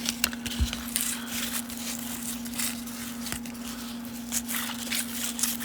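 Trading cards and foil pack wrappers being handled: irregular rustling, crinkling and small clicks, over a steady low hum.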